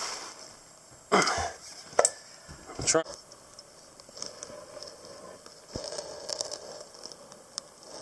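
Liquid squirting and sputtering out of a 60 cc irrigation syringe and catheter into a steel bowl in three short bursts over the first three seconds, the last breaking into a rapid sputter, followed by faint scattered drips and ticks.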